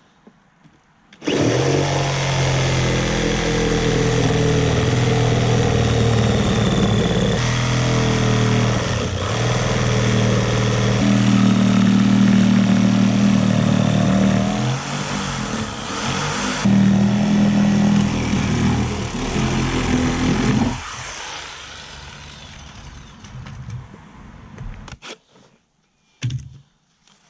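Electric power tool starting about a second in and running loudly for about twenty seconds, its pitch shifting now and then. It is then switched off and winds down over a few seconds, with a couple of light knocks near the end.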